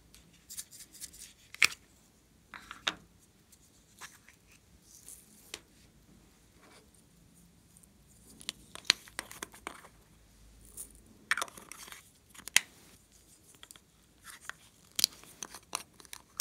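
Hands handling small plastic hexagonal makeup cases and clay pieces: scattered sharp clicks and crinkly rustles, the loudest clicks coming in small groups.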